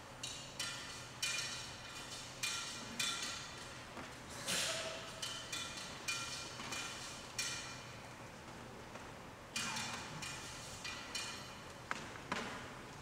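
Clinks and taps of metal and glass oil vessels being handled, each sharp knock ringing briefly. There are about fifteen of them at uneven intervals.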